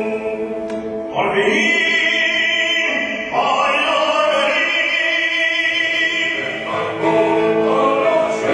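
Cantorial singing by a male cantor with choir and orchestra: long, operatic held notes that change pitch about every two to three seconds.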